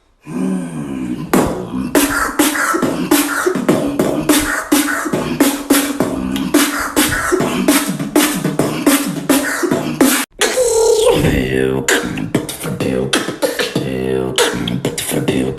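Human beatboxing: rapid mouth-percussion clicks and snares over a hummed bass line. It breaks off briefly about ten seconds in, then a new pattern starts with pitch sliding up and down.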